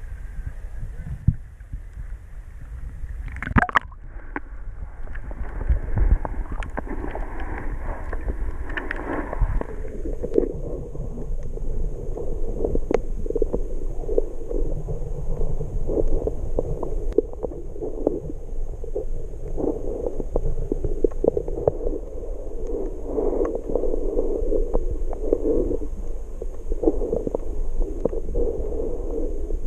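Water sloshing and splashing around a camera held at the sea surface, with a sharp splash a few seconds in. About ten seconds in the camera goes under, and the sound turns to a muffled underwater gurgle and rumble with scattered small clicks and a faint steady high tone.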